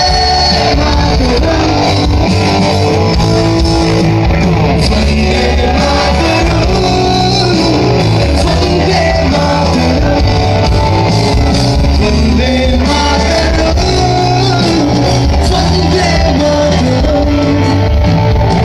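Live rock band playing loudly with a singer, heard from within the audience.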